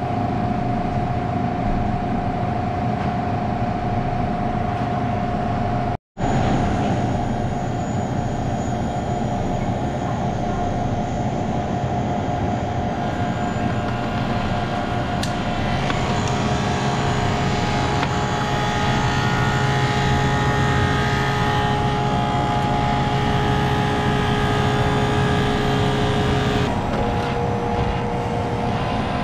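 Condensing unit of a refrigerated prep table running: the compressor and condenser fan make a steady mechanical hum with a few steady tones. A deeper hum comes in midway and drops out near the end. It runs louder than normal on a system whose expansion valve has failed and is blocking the liquid line, so refrigerant piles up on the high side.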